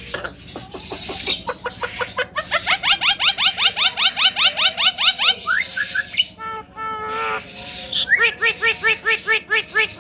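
Javan myna calling: a fast run of rising notes, about eight a second, lasting about three seconds, then a short held note and a series of repeated chirps, about five a second, near the end.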